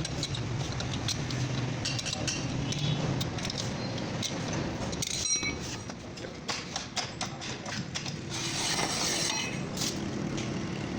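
Metal tools and parts clinking and clattering in irregular short knocks over a steady low hum. One clink rings briefly about five seconds in, and there is a short hiss near the nine-second mark.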